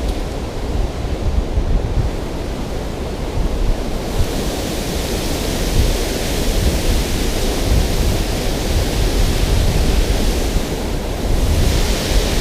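Steady rush of water with wind buffeting the microphone; the rush turns brighter and louder about four seconds in.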